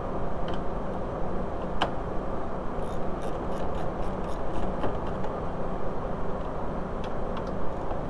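Hand ratchet with an M8 triple-square bit clicking as it loosens the bolts of a car door's regulator panel, with a run of quick, even clicks midway and a few more near the end, over a steady background hiss.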